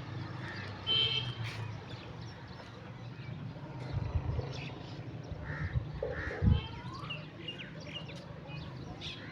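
Birds calling in short pitched calls, with a single loud low thud about six and a half seconds in.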